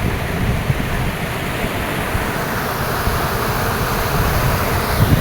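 Wind buffeting the microphone in uneven low gusts over a steady rushing of river water.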